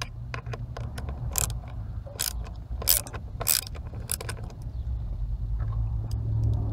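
Self-tapping screw being driven by hand into the metal steering-wheel frame, cutting its own thread: a run of irregular sharp clicks from the tool and screw, over a low steady hum.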